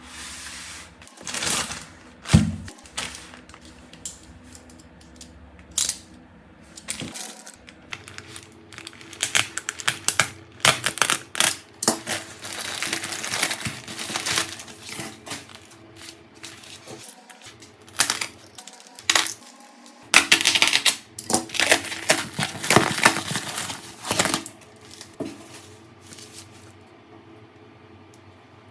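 Small hard objects handled on a work surface: irregular clicks, taps and light clinks with short scraping and rustling bursts, the sound of a cracked phone and repair tools being picked up and set down. The handling stops a few seconds before the end.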